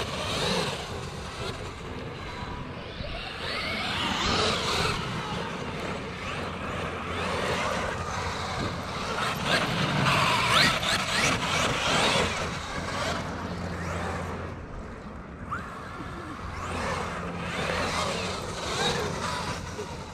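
Traxxas X-Maxx electric RC monster truck driving over grass. Its brushless motor and drivetrain whine, rising and falling in pitch with the throttle.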